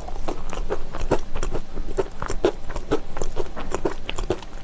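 Crunching and chewing a hard braided honey-wheat pretzel twist (Utz Honey Wheat Braided Twists): a run of short, crisp crunches, about four a second.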